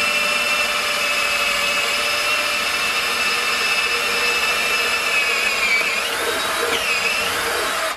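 Hitachi cordless drill with a 7 mm bit drilling into an aluminium extrusion, its motor running with a steady whine. The pitch dips twice near the end, then the drill stops suddenly.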